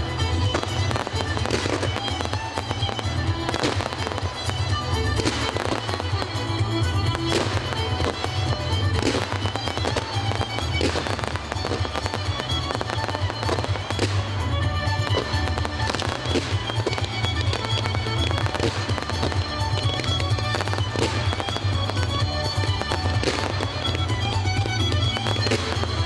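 Fireworks display: aerial shells bursting in a rapid, irregular string of sharp bangs, with music playing under them.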